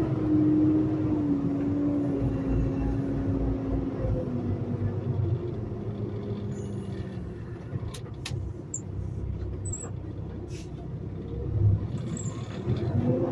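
Semi-truck diesel engine heard from inside the cab as the rig rolls slowly, its pitch gradually dropping as the truck slows and then rising again near the end as it picks up speed. A few light clicks sound about two-thirds of the way in.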